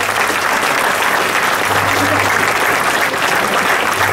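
Large crowd applauding steadily, with a few voices mixed in.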